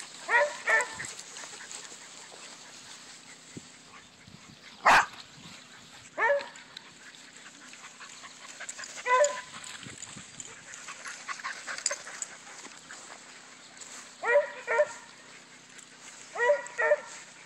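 Small dog barking: short, high yaps, singly and in quick pairs, about eight in all. A single sharp knock comes about five seconds in.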